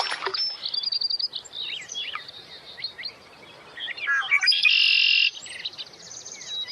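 Birds singing: a quick high trill about half a second in, scattered short chirps, and a loud buzzy call lasting under a second about four and a half seconds in.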